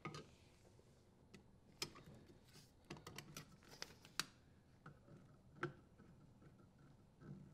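Faint, scattered clicks and light taps of a hand handling the dishwasher's metal electrical terminal box and its cover, with a cluster of quick clicks in the middle and a single sharper one a little later.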